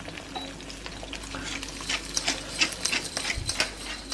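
Eggs sizzling and crackling in olive oil in a frying pan, with a hand-twisted mill grinding over the pan, a run of fine clicks that grows denser from about a second and a half in.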